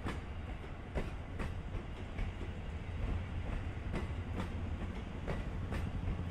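Train wheels clacking over rail joints and points, a sharp clack every half second to a second over a steady low rumble.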